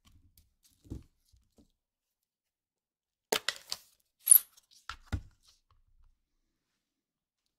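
Handling of a plastic-cased stamp ink pad and a clear acrylic-mounted stamp: a soft knock about a second in, a quick cluster of small clicks, then a sharp plastic click, the loudest sound, followed by two duller knocks as the stamp is pressed onto the pad.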